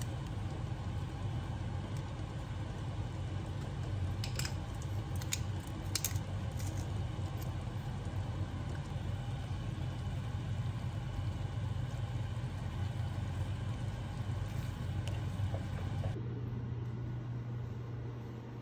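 A steady low mechanical hum, with a few light clicks about four to six seconds in. Near the end the hum turns into a smoother, steadier low tone.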